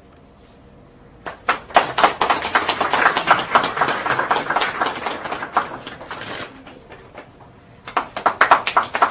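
A small group applauding. A round of clapping starts about a second in and dies away, then a second round starts near the end.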